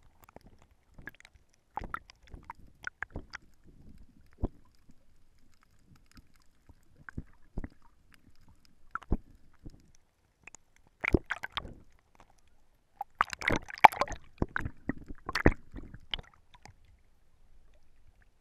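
Underwater sound through a GoPro's waterproof housing: scattered clicks and crackles, sparse at first and thickest in a busy cluster about two thirds of the way through.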